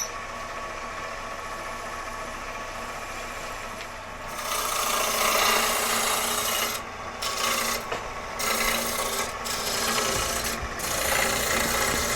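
A turning gouge cutting a spinning lignum vitae bowl blank on a wood lathe, shaving the cove where the base meets the upper surface. The cutting is steady and quieter at first, grows louder about four seconds in, and breaks off briefly a few times.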